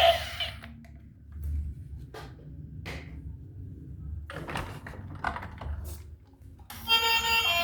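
Scattered light clicks and knocks of toys and packaging being handled. About seven seconds in, a loud electronic tune with steady beeping tones starts.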